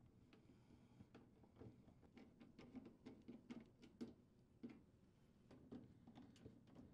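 Near silence, with faint, irregular clicks and ticks from a hand-turned quarter-inch nut driver driving screws into a refrigerator's freezer access panel.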